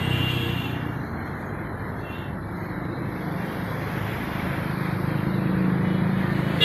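Road traffic outdoors with a motor vehicle engine passing, growing louder toward the end.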